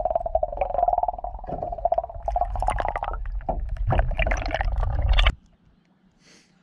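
Underwater sound picked up by a submerged camera as a hand moves a flathead through the water beside a boat hull: muffled sloshing and gurgling with clicks and knocks over a steady hum. It cuts off suddenly about five seconds in.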